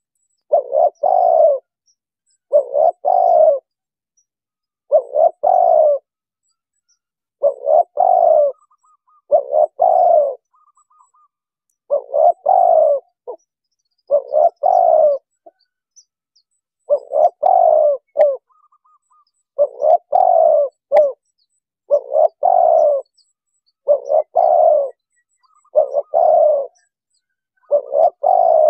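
Spotted dove (tekukur) cooing: a string of short coo phrases, each about a second long, repeated roughly every two seconds.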